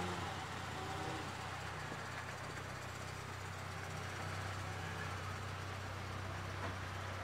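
Mitsubishi Lancer Evolution IV's turbocharged 4G63 inline-four idling steadily through a straight-pipe exhaust.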